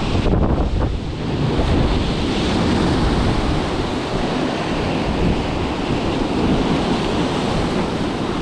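Storm-swell surf breaking and churning against the rocks close below, with wind buffeting the microphone.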